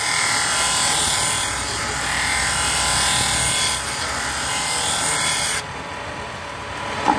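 Belt-driven disc sander running, with a thin wooden board's edge pressed against the spinning disc: a loud, steady grinding hiss over the machine's whine. The hiss drops away about five and a half seconds in, leaving the sander running.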